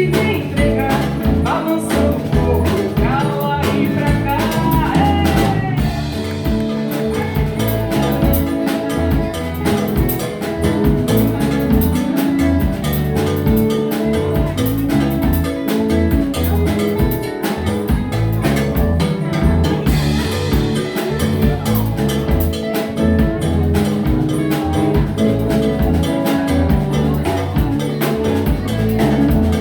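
Live band playing an instrumental passage: acoustic guitar (violão), bass guitar and drum kit keeping a steady groove.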